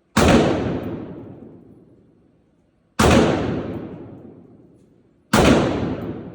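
Three gunshots at a shooting range, about two and a half seconds apart, each fading away over about two seconds.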